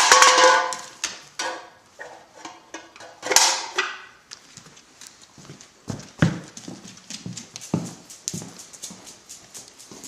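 A dog's claws clicking and tapping on a hard floor as it walks, with scattered knocks. A short pitched sound comes at the start and another about three seconds in.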